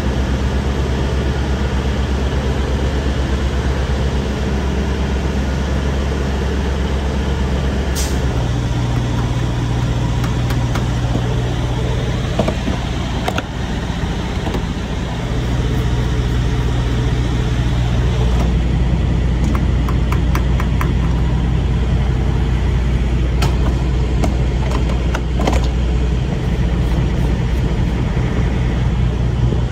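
Heavy diesel truck engine idling steadily, its hum shifting slightly about eight seconds in, with a few sharp clicks scattered through.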